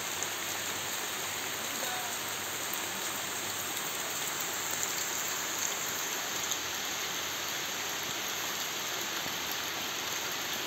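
Steady rain falling on a shallow rocky stream and the leaves around it: an even hiss.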